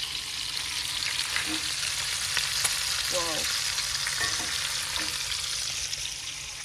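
Bacon frying in a pan: a steady sizzle.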